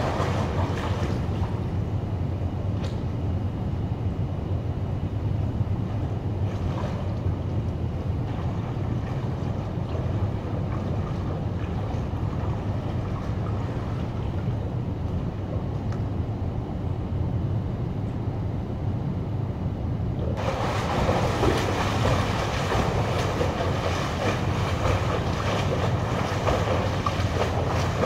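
Steady low rumble and hiss of an indoor pool hall. About two-thirds of the way through, the louder rushing splash of a swimmer doing front crawl joins in and keeps going.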